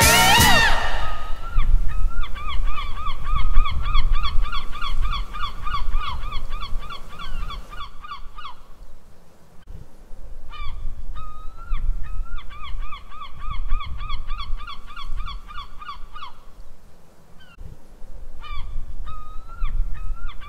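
A bird's honking calls in quick, evenly spaced runs: three runs of nearly the same pattern with short pauses between, like a repeated sound-effect recording. Music cuts off just as it begins.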